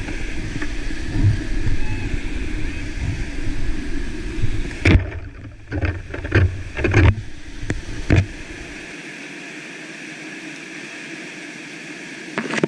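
Rushing whitewater of a steep creek rapid, with low rumbling buffets on the camera microphone for the first few seconds. A cluster of sharp knocks comes around the middle, then the water rush goes on steadier and thinner.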